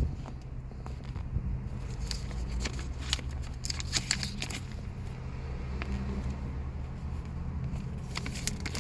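Holden Commodore V6 engine idling steadily, heard from inside the cabin, with a scatter of soft clicks and rustles from service-book pages being flicked through.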